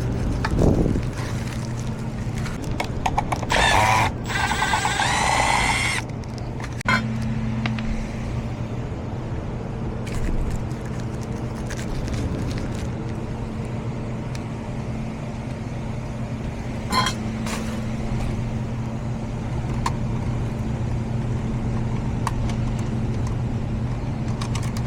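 Steady low hum of a running HVAC system, with scattered clicks and knocks from hand work on the ductwork. A brief, higher mechanical whine comes in about four seconds in and stops at about six.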